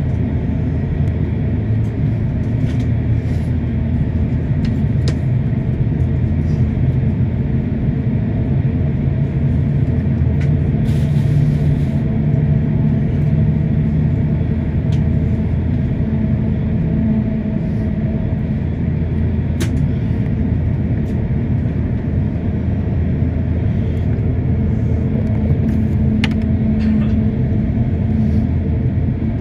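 Steady low rumble inside an airliner cabin as the plane taxis, with a faint steady hum and a few light clicks.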